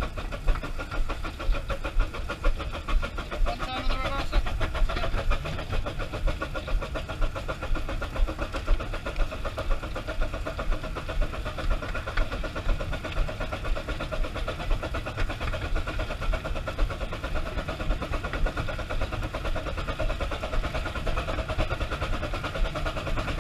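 Green Goddess, a 15-inch gauge 4-6-2 steam locomotive, running under steam, heard from its open cab: a continuous running clatter with a regular sharp beat about once a second.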